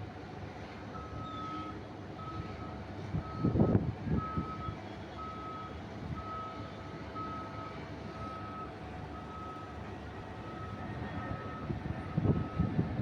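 Reversing alarm of an airport ground-service vehicle beeping steadily at one pitch, a little more than once a second, over a low engine hum. A loud low rumble swells briefly about four seconds in and again near the end.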